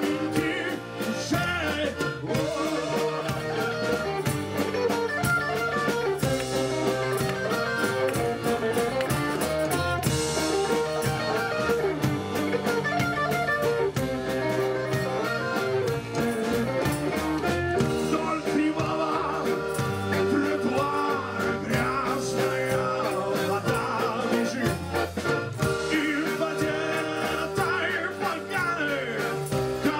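Live band playing a rock song: a man sings in stretches over electric guitar, a drum kit, accordion and upright bass.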